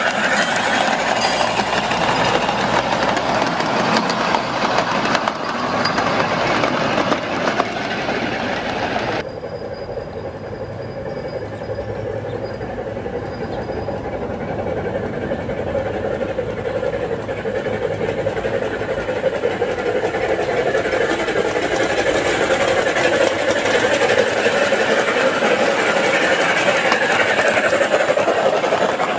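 A ride-on 1/8-scale miniature train running on its track, with a steady mechanical noise from the locomotive and its wheels on the rails. The sound drops sharply about nine seconds in, then grows steadily louder as the train approaches.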